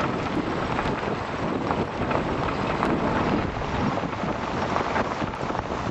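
Steady rushing wind and road noise inside a moving car, with wind buffeting the microphone.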